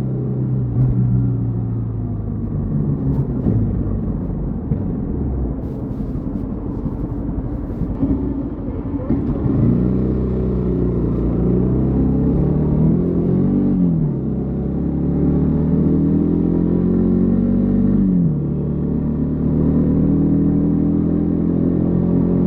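Yamaha XTZ 150 Crosser S single-cylinder engine running under way, its pitch rising and falling with throttle and gear changes, with a sudden drop in pitch about three-quarters of the way through.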